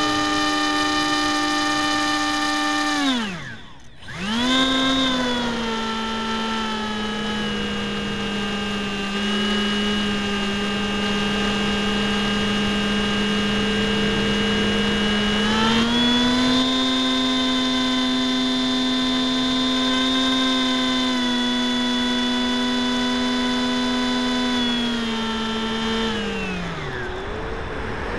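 RC plane's electric motor and propeller, heard from a camera on board: a steady whine that winds down and stops about three seconds in as the throttle is cut, spins back up a second later, steps up in pitch about halfway through, then winds down again near the end.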